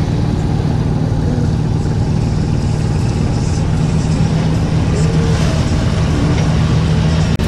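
Steady low engine drone with water rushing and churning past, as a small sailboat motors close alongside a tugboat pushing a barge.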